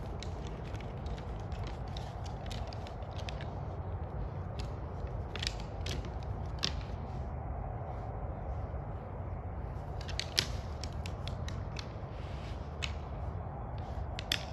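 Two deer bucks' antlers clicking and clacking against each other as they spar, in irregular clusters, with the sharpest clack about ten seconds in. A steady low background rumble runs underneath.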